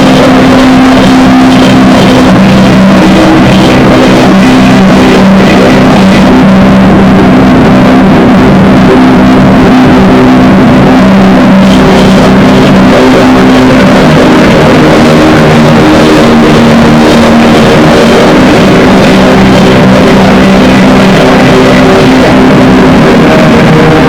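Loud drone-noise metal music: a dense wall of distorted noise over low held tones, which shift to a different pitch about halfway through.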